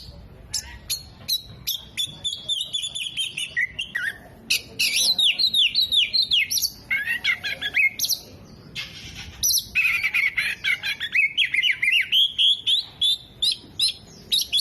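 Oriental magpie-robin (kacer) in full song: a loud, fast, varied run of sliding whistles and chattering notes, with short breaks about four and eight seconds in.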